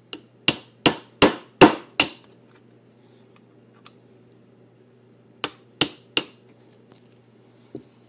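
Hammer tapping a pin punch to drive the pins out of a Charter Arms Bulldog revolver frame. Five quick metallic taps, then after a pause of about three seconds three more, each with a short high ring.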